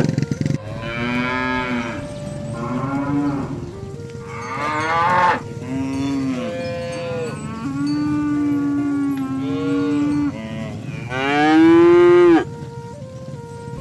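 Cattle mooing: a run of about seven calls, one held for a couple of seconds in the middle, and the loudest about two seconds before the end.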